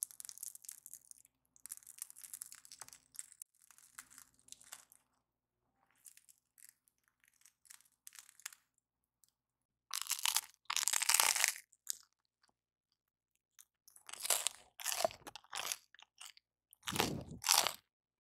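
Crisp crust of a baked bialy crackling faintly as it is pulled apart by hand, then louder crunching bites into the bread, one around ten seconds in and a few more near the end.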